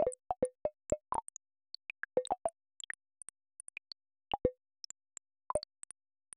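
Earthquake data sonification: a rapid, irregular scatter of short synthetic plinks at different pitches, one for each earthquake event, with each tone's pitch set by the quake's magnitude. The plinks come thickest in the first second and again in small clusters about four and a half and five and a half seconds in.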